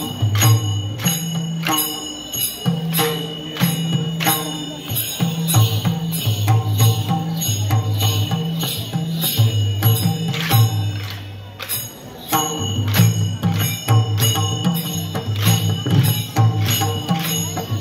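Traditional Newari festival dance music: a drum beats a steady, repeating pattern, with sharp jingling metallic strikes about two or three times a second.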